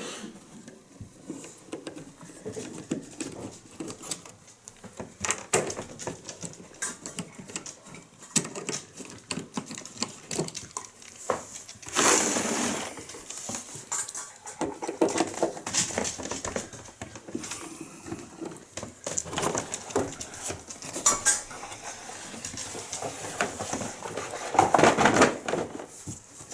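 Clattering, clicking and knocking of hard objects being handled, with longer scraping rushes about twelve seconds in and near the end.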